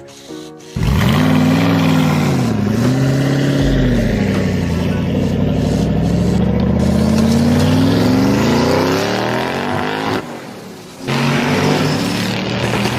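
An engine revving: its pitch dips and rises twice, then climbs in one long rise over several seconds. It cuts off about ten seconds in and starts again about a second later.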